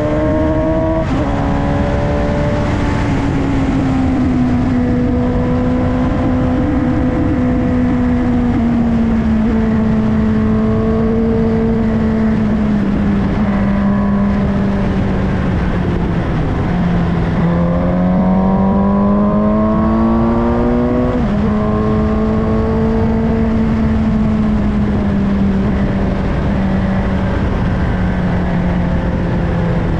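Suzuki GSX-S750's inline-four engine under way, heard on board. Its note falls away slowly, climbs as the bike accelerates about two-thirds of the way through, and drops sharply at an upshift; there is another sharp drop at a shift about a second in.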